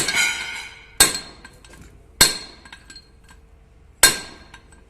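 Hammer striking a steel propeller-shaft coupling yoke four times at uneven intervals, each blow ringing metallically as it drives out the universal-joint cross.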